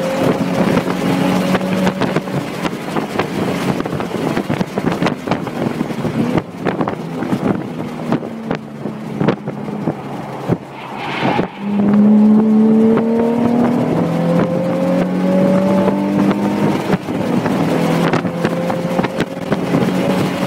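A Nissan 350Z's 3.5-litre V6 heard from inside the cabin at track speed, over road and wind noise. The engine note eases off as the car slows through a corner. From a little past halfway it comes back louder under full throttle, rising in pitch in steps as it shifts up.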